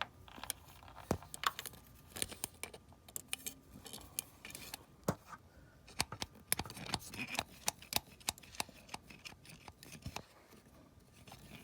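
Irregular sharp clicks and light metallic taps, dozens of them scattered throughout, from close handling of small metal objects.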